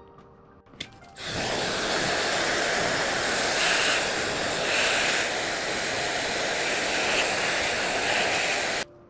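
A steady, loud hiss of rushing air or spray, starting abruptly after a click about a second in and cutting off suddenly near the end.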